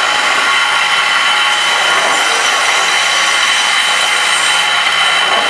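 Concrete hollow-block making machinery running loudly and steadily, with a constant high mechanical whine over a harsh rushing noise.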